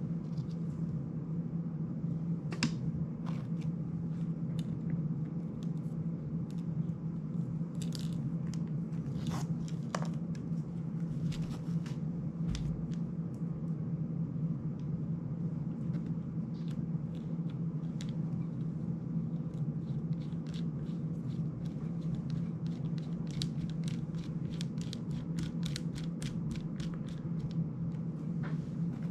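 Small clicks and scrapes of a precision screwdriver driving tiny screws into a plastic FPV drone frame while it is handled, with a quick run of ticks near the end, over a steady low hum.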